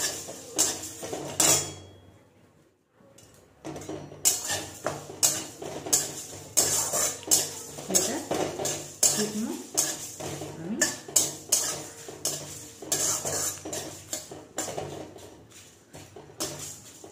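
Metal spatula scraping and tapping against a metal kadai, stirring whole spices (cumin, coriander and fennel seeds with dried red chillies) as they dry-roast in the bare pan. It comes as a quick run of short scrapes, several a second, with a brief pause about two seconds in.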